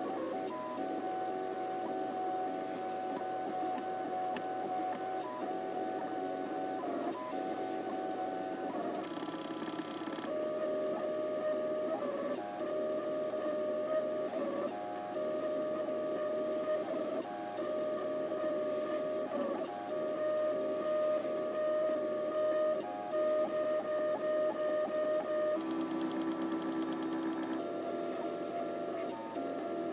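MakerBot dual-extruder 3D printer running a print: the stepper motors whine in steady tones that jump to a new pitch every second or few as the head changes moves.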